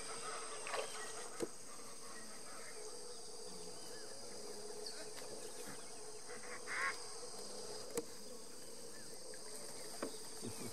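Steady, shrill chorus of insects buzzing on several high tones. A few sharp clicks and a brief chirping call, about two-thirds of the way in, sound over it.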